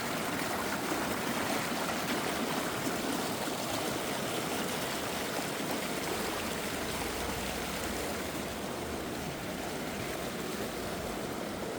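River water rushing and flowing steadily, an even wash of noise.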